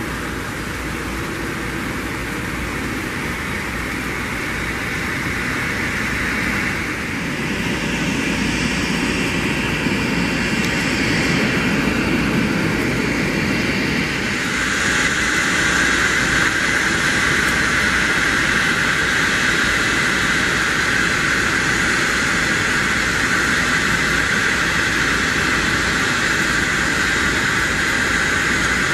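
Jet airliner engines running, a GOL Boeing 737 on a rain-soaked runway, heard as a steady rushing noise. It grows louder about a quarter of the way in, and again about halfway, where a steady high whine comes in and holds.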